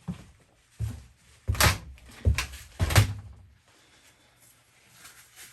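A series of knocks and thumps, about five over three seconds, the loudest pair about halfway through, then a quieter spell with a faint low hum.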